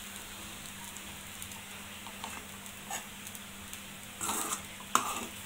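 Rice stir-frying in a kadai with a faint, steady sizzle as a steel spoon stirs it. The spoon scrapes and knocks against the pan a few times, with a louder scrape just after four seconds and a sharp knock about five seconds in.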